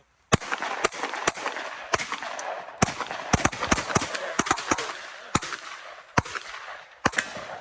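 Rapid gunfire at a shooting range: about fifteen single shots at an uneven pace of roughly two a second, each followed by ringing echo.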